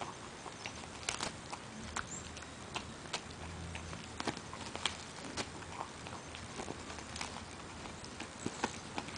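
Dachshund gnawing a hard, dry chew: irregular sharp crunches and clicks, a few each second, as its teeth work the chew.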